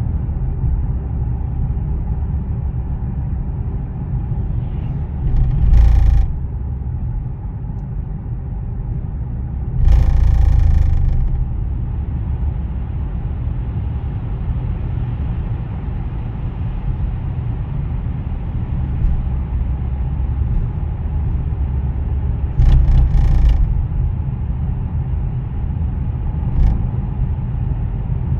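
Cadillac CTS Sport Wagon driving with a steady low road rumble, broken about five times at uneven intervals by a short, loud knock. The knock is the unexplained abnormal noise the car makes while driving, cause unknown.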